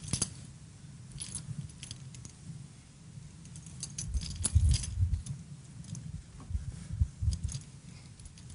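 Scattered light clicks and jingles of small hard objects, with a few dull low thumps around the middle and again near the end.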